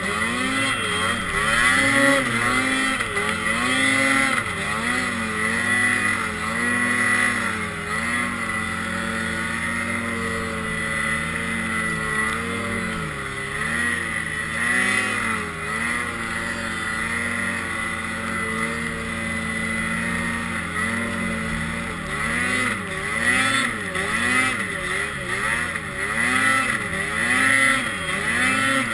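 Ski-Doo Summit 800 snowmobile's two-stroke twin engine running hard, its pitch rising and falling every second or two as the throttle is worked through deep powder.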